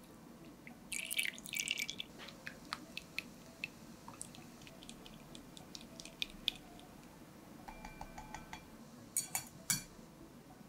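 Wire whisk clinking and scraping against a glass mixing bowl as runny chocolate batter is stirred, with a quick run of ringing taps about eight seconds in. Two louder sharp clinks follow near the end, as a metal sieve is set on the glass bowl.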